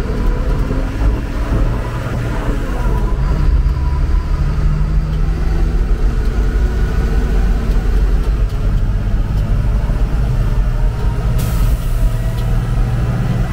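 Dump truck's diesel engine running under load as the truck accelerates, heard from inside the cab, its pitch stepping up and down several times through the gears. A hiss joins near the end.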